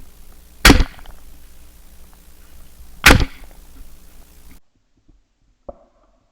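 Two shotgun shots about two and a half seconds apart, the first a little under a second in; the sound then drops out abruptly, with one faint click near the end.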